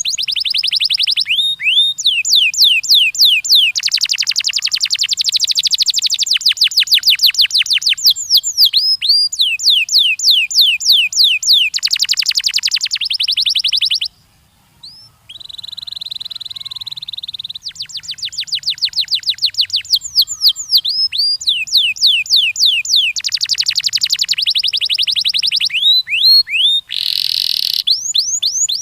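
Domestic canary singing: long rolling trills, each a rapid run of the same high note repeated many times a second, shifting from one trill to the next. It breaks off briefly about halfway, with a single steady held note just after, then the trills resume.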